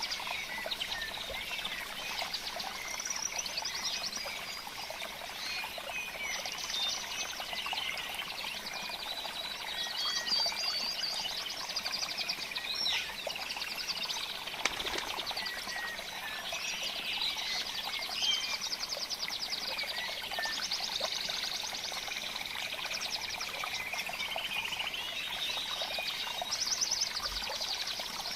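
A dense chorus of small birds chirping and trilling, with rapid buzzy trills coming and going over a faint steady hiss.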